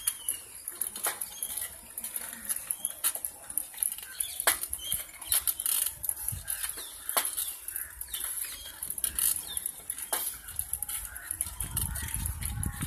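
Outdoor ambience of small birds chirping, with scattered sharp clicks and a low rumble coming in near the end.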